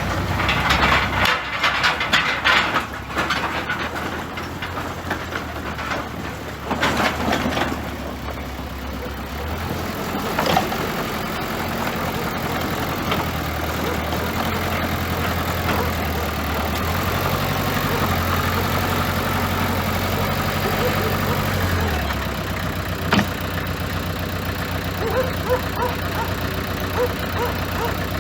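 Komatsu bulldozer's diesel engine running under working load, its low hum stepping up and down in pitch several times. Louder bursts of rattling noise come in the first few seconds and again about seven seconds in, with a sharp click near the end.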